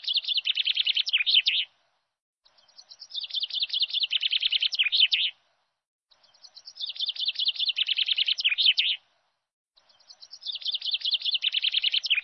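A songbird's song: a quick trilling phrase of high notes about two and a half seconds long, repeated the same way roughly every three and a half seconds, as a looped recording.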